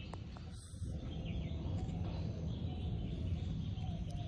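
Outdoor garden ambience: a steady low rumble with faint bird chirps.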